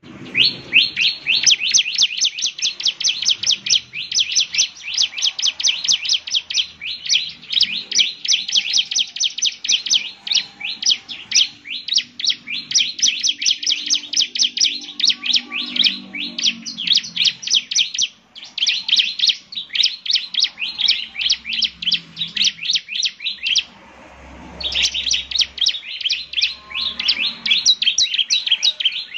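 Bar-winged prinia (ciblek) singing in full voice: long, rapid trains of sharp high chips, about ten a second, broken by short pauses. It is a 'gacor' song of the kind played to lure or prompt other ciblek to answer.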